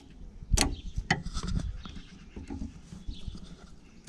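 A pry tool working at the clip on a car's steering rack boot. There is a sharp click about half a second in and another a moment later, followed by light knocking and rubbing as the tool works around the boot.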